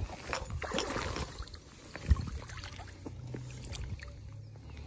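Water splashing and sloshing with scattered light knocks, including one sharp knock about two seconds in, as a freshly landed trout is handled at the water's edge for unhooking.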